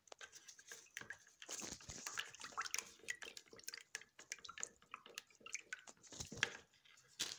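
A spoon stirring liquid in a plastic container, with irregular wet sloshes and light clicks and scrapes against the sides.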